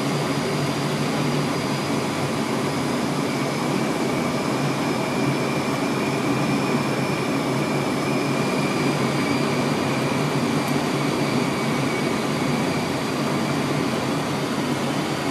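Steady engine and airflow noise inside an airliner's cockpit on final approach, with a faint steady high whine over it.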